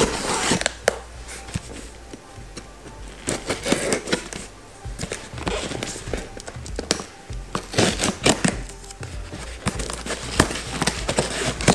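A cardboard parcel being handled and its packing tape slit open with a knife: irregular scrapes, taps and crackles of tape and cardboard, coming in several clusters.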